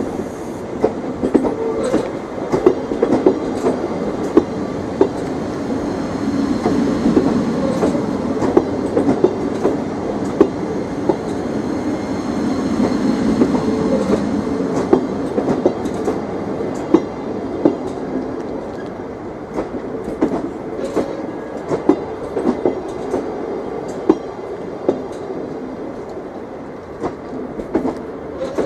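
Thameslink Class 700 electric train moving slowly through the platform, a steady rumble with its wheels clicking and clacking sharply over the rail joints.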